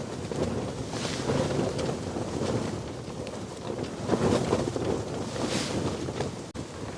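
Wind gusting over the microphone in a low, rumbling buffet, with stronger gusts about a second in and again around four seconds.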